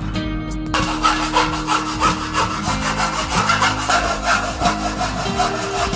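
Hacksaw cutting through a galvanized light-steel (baja ringan) profile with steady back-and-forth strokes, about three a second, starting about a second in.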